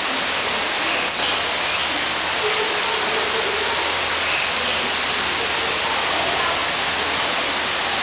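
Steady rushing hiss of a waterfall, with a few faint, short, high bird chirps over it.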